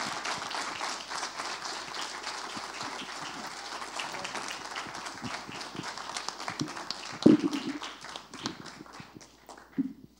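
Audience applauding, a dense patter of many hands clapping that thins out and dies away near the end. A single brief louder, low sound stands out about seven seconds in.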